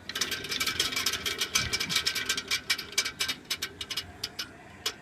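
Diesel fluid coupling's shaft being turned, giving off a rapid rattling clicking that comes thick at first and then thins out to a few separate clicks. This is the extraneous noise the coupling makes when its shaft rotates, a sign of a fault inside it.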